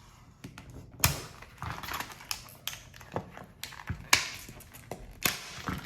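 Tool packaging being opened by hand: a run of sharp, irregular clicks and crackles, the loudest about a second in and again around four and five seconds.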